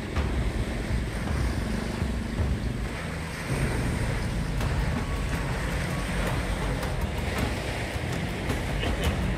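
Wind buffeting the microphone, over sea water washing at the shore.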